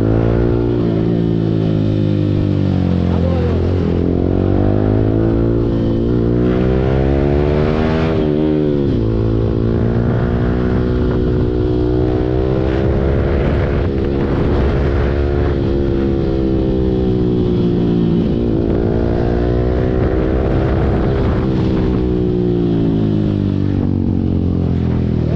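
Yamaha R15 V4's 155 cc single-cylinder engine breathing through a full-system Akrapovic exhaust while riding. The engine note climbs and falls in pitch several times as the bike accelerates through the gears and backs off, with a sharp drop about nine seconds in.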